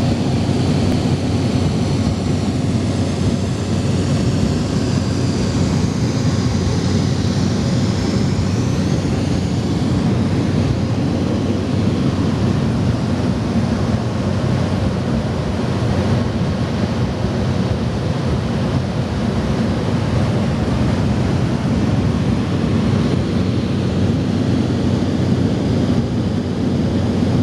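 Steady cabin drone of a small propeller aircraft in cruise: engine and propeller noise with a constant low hum.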